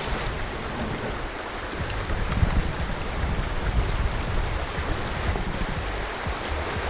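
River water rushing steadily, with a low rumble that swells over the middle few seconds.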